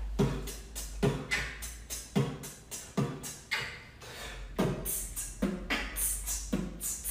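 Vocal beatboxing: a steady kick-and-hi-hat pattern, a deep kick about once a second with quick hissing hi-hat clicks in between.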